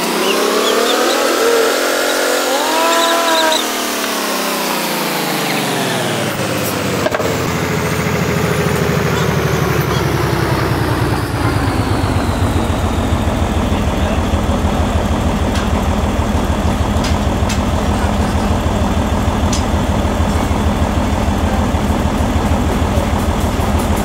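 Forklift engine revving up and winding back down over the first few seconds while the mast holds a heavy log, then settling into a steady idle.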